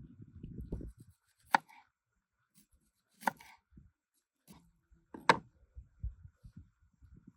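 Chopping: three sharp strikes about two seconds apart, with softer low knocks and handling noise between them.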